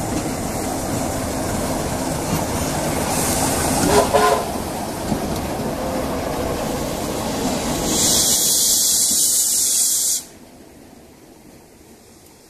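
Class 33 'Crompton' diesel locomotive with its Sulzer eight-cylinder engine running past, a loud steady rumble with a brief squeal about four seconds in. About eight seconds in a loud hiss of steam from the S160 steam locomotive starts and cuts off suddenly two seconds later, leaving only a faint rumble.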